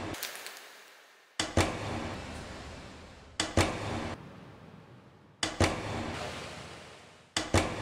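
A door shutting: a double clack followed by a fading rattle and echo, repeated about every two seconds, four times.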